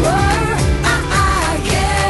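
Background pop song with a singing voice over a steady band accompaniment.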